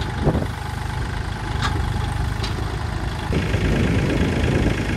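Kubota L4018 tractor's three-cylinder diesel engine idling steadily, with two short clicks about a second apart partway through.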